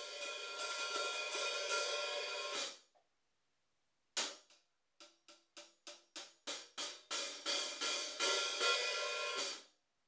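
14-inch Sabian AAX Stage hi-hats struck with drumsticks. A sustained open wash cuts off sharply a little under three seconds in. After a pause comes a single hit, then a run of short strokes that come faster and merge into another ringing wash, which is cut off sharply again near the end.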